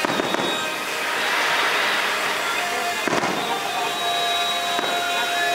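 Aerial fireworks bursting: a bang at the start, another about three seconds in and a smaller one near the end, with a crackling hiss after the first burst.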